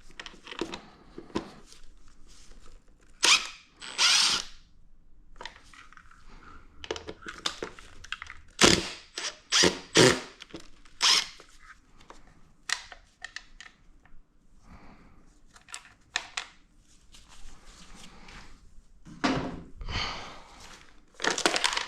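Tool and handling noise as screws are taken out of a motorcycle's plastic airbox: a run of short, irregular clatters and bursts, some lasting about half a second.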